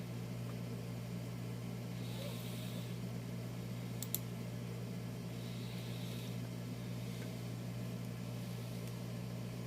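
Steady low hum, like a fan or appliance running, with a faint click about four seconds in.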